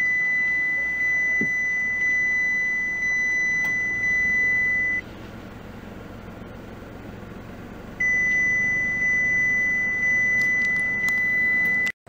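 A steady, high-pitched electronic beep tone, held for about five seconds, silent for about three, then held again for about four seconds.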